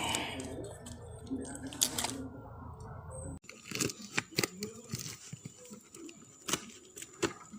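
Parcel packaging being unwrapped by hand: crinkling and tearing of the wrapping, with scattered clicks and taps. A low background hum cuts off abruptly about halfway through.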